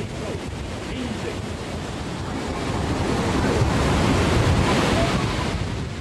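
Rushing roar of a tsunami surge breaking and pouring ashore, mixed with wind buffeting the microphone of an amateur camcorder. It swells to its loudest about four seconds in.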